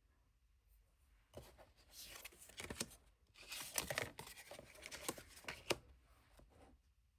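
Tarot cards being handled: papery rustling and crinkling with several sharp clicks, for about four and a half seconds.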